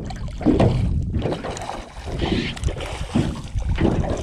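Wind buffeting the microphone over water lapping and splashing, as a hooked drum thrashes at the surface beside the boat.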